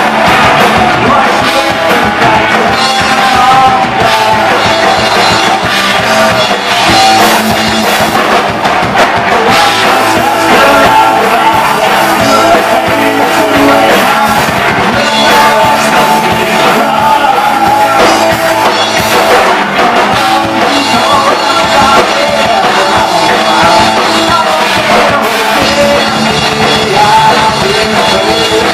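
A punk rock band playing live and loud: electric guitar, bass guitar and drum kit, with a singer.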